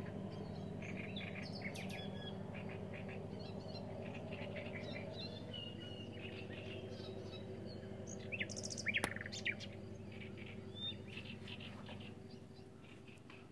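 Common nightingale singing in varied phrases of chirps and whistles, with a louder run of rising whistles about two-thirds of the way through, over a low steady hum.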